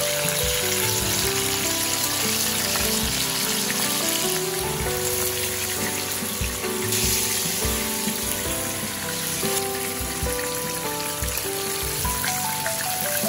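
Mackerel scad sizzling as it shallow-fries in hot oil in a pan: a steady, crackling hiss, a little stronger in the middle. Background music with a melody plays over it.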